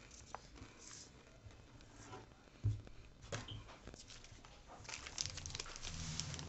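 Faint chewing of a potato chip with scattered small crunches and clicks, then a snack wrapper crinkling for about the last second and a half.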